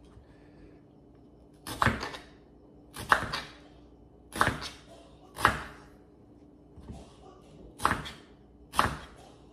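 Crinkle-cut knife slicing through a raw potato and knocking on a wooden cutting board: about seven crisp cuts, roughly one a second, one of them faint.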